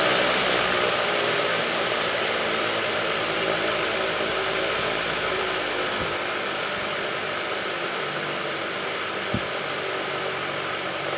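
Dayton electric fan running on high, a steady rush of air over its motor hum, easing slightly in level. Its blades are pitched steeper to load the motor, which is drawing a little more than its rated 1.3 amps. Two short clicks come partway through.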